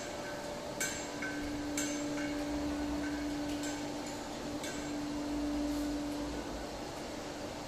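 Machine-shop ambience: a steady mechanical hum with several sharp metallic clinks in the first five seconds.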